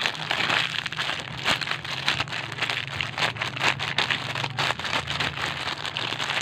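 Continuous crinkling and crackling of paper and plastic as handmade paper squishies and their plastic bags are handled and squeezed.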